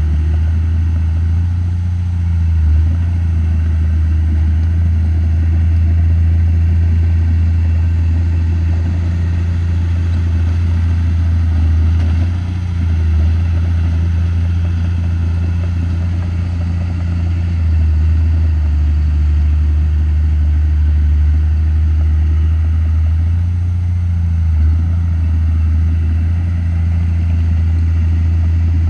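Komatsu D31P bulldozer's diesel engine running steadily in a low drone, its pitch dipping and shifting a few times as it works.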